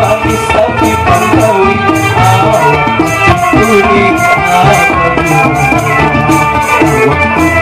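Live Banjar panting music: plucked strings and guitar over a steady drum beat, with a man singing the melody into a microphone.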